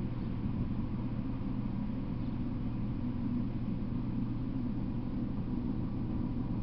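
Steady low rumble with an even hiss over it, unchanging throughout; no train is passing.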